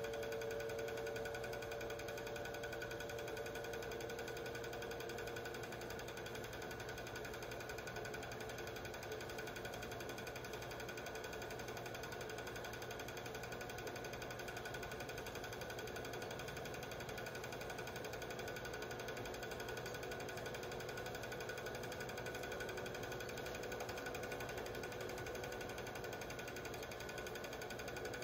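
Film projector running, a steady rapid clatter from its mechanism with a faint motor whine.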